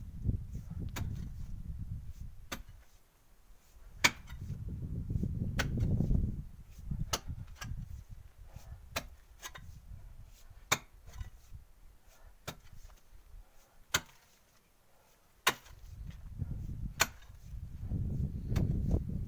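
Pick strikes on hard earth and stone at the bottom of a hand-dug well shaft: sharp knocks, unevenly spaced at about one a second, a couple of them much louder than the rest. Low rumble comes and goes underneath.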